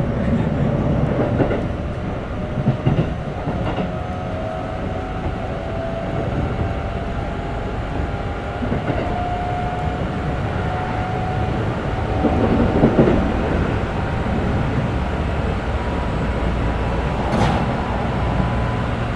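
Interior running sound of a Keikyu 1500 series motor car with Mitsubishi GTO-VVVF inverter control. A thin motor and inverter whine rises slowly in pitch over the first several seconds as the train gathers speed, then holds steady over the rumble of the running gear. Wheels clack at rail joints now and then.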